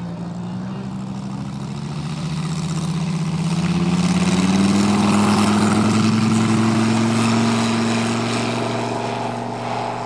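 Moki 250 four-stroke radial engine of a giant-scale C-ARF Corsair model airplane running at full throttle on its takeoff run. Its pitch rises over the first few seconds and it is loudest about halfway through as the plane lifts off and passes, then grows a little quieter as it climbs away.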